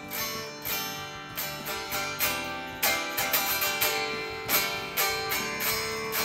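Squier Affinity Telecaster electric guitar played in a run of picked notes and chord fragments, several attacks a second with notes ringing on, just after the strings were intonated and tuned.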